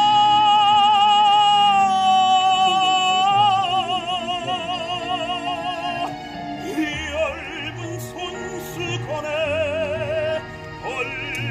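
A baritone singing a Korean art song live in full operatic voice over a backing track played from a Bluetooth speaker. It opens on a long held note that turns into wide vibrato after about three seconds and ends about six seconds in, followed by shorter phrases.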